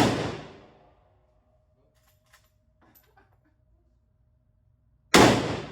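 Two gunshots from a high-powered firearm about five seconds apart, each a sharp crack that echoes and dies away over about a second in the enclosed range, with a few faint clicks between them.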